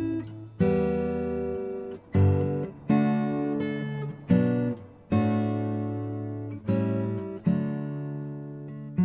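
Background music: acoustic guitar strumming chords, each chord struck sharply and left to ring and fade before the next.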